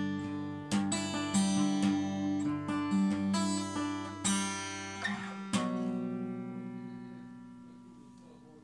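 Acoustic guitar strumming chords in a song's instrumental outro. It ends on a last chord about two-thirds of the way through that rings and slowly fades away.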